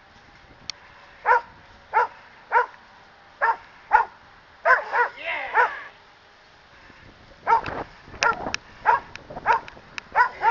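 Poodle barking in short, sharp barks at a man agitating it in on-leash attack training: a string of barks about half a second apart, a pause of a second or so, then a quicker run of barks near the end.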